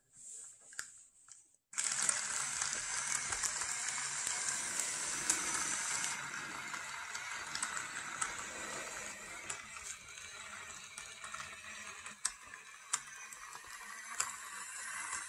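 Small RC tank chassis driving under the load of a full 2-liter water bottle: its two N20 gear motors, gearbox and metal track links give a steady, dense rattle with many small clicks, starting suddenly about two seconds in.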